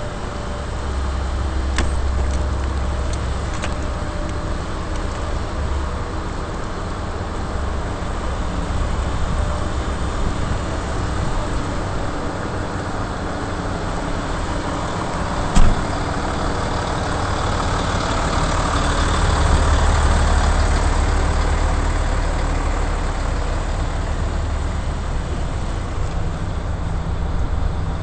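Steady running rumble and road noise of a small vehicle moving over wet pavement, with a single sharp knock about fifteen seconds in.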